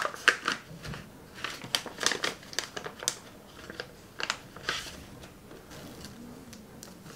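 Clear plastic wrapping and backing film of medicated pain-relief patches crinkling as they are handled and peeled, in quick sharp crackles that thin out after about five seconds.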